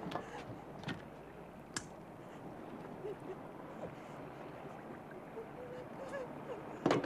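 Boat at sea: a steady wash of water with a few sharp knocks in the first two seconds and some faint short tones, then a louder burst just before the end.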